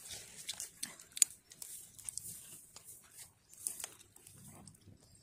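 Small twig fire crackling: irregular sharp pops and snaps, the loudest about a second in, over a faint hiss.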